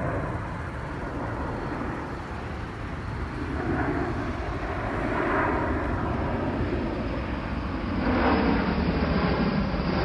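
Rockwell B-1B Lancer bomber's four jet engines (GE F101 turbofans) running as it flies overhead. The rumble grows steadily louder as it approaches, with a further rise about eight seconds in.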